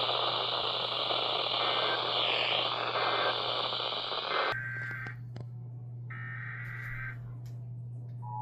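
Radio static hiss over a low hum, with three faint, short data tones about a second apart. About halfway through the static cuts off, and two roughly one-second bursts of Emergency Alert System header data tones follow. Right at the end the steady two-tone EAS attention signal begins.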